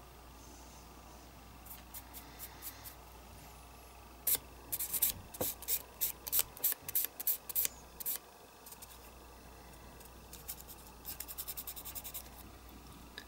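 Fine-grit sanding stick rubbed in short strokes over a small putty-filled metal toy cannon part. A few light strokes come first, then a louder, uneven run of strokes, and near the end a quick run of rapid back-and-forth strokes.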